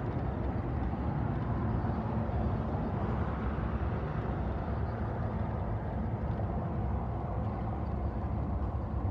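Steady low vehicle rumble, heard from inside a car, with no distinct events.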